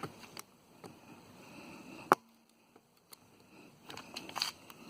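A screwdriver working at a nail stuck in a car tire: a few sharp clicks and scraping taps, the loudest a single sharp click about two seconds in, with more rattling scrapes near the end.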